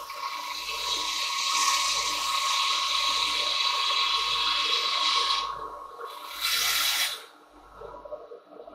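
Cordless drill spinning a 180-grit sanding disc against a silver birch bowl turning on a lathe: a steady rushing hiss with a whine. It stops about five and a half seconds in, comes back in a short burst about a second later, then stops.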